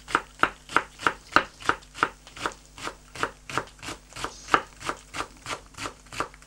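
Chef's knife slicing spring onion greens thinly on a wooden cutting board: an even run of chopping knocks, about three to four a second.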